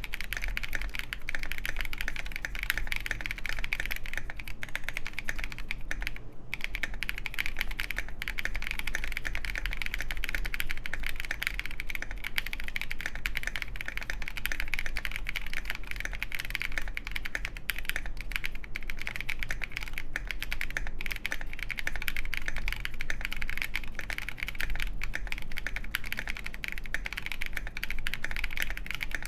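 Steady, fast typing on a KindleStar Orion 87 mechanical keyboard with lubed Boba U4T tactile switches, a polycarbonate plate, foam-filled case and KAT-profile keycaps, giving a dense run of keystroke clacks. There is a brief pause about six seconds in.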